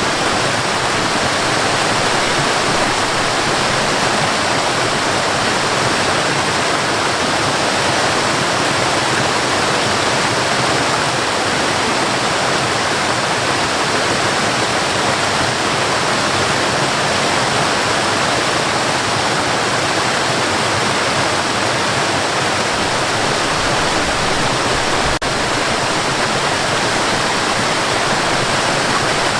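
Cascading water, an even, steady rush of falling water, with one very brief dip about 25 seconds in.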